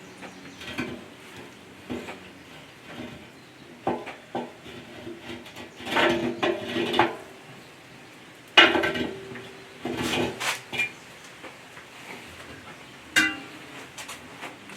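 Metal clanking and ringing from the steel rebar rods and lid of a pit barrel cooker being set in place: a handful of separate clanks, the sharpest about eight and a half seconds in.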